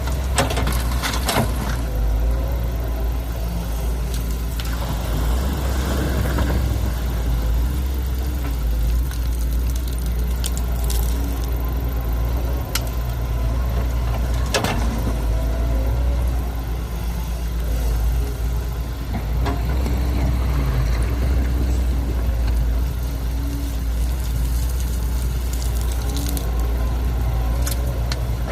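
Heavy diesel earthmoving machinery, an excavator and dump truck, running steadily under load while digging and moving soil, with a few sharp knocks.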